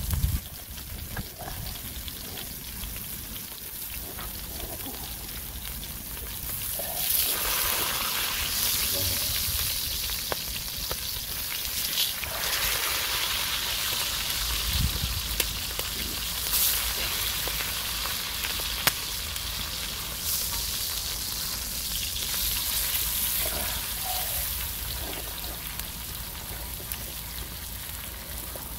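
Pork belly and neck slices sizzling on a cast-iron cauldron-lid grill over a wood fire: a steady hiss that grows louder about seven seconds in and eases off after about twenty seconds, with scattered sharp clicks.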